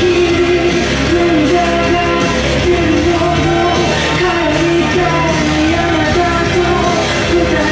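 Music: a song with a sung melody over steady accompaniment, played as the backing track for a yo-yo freestyle routine.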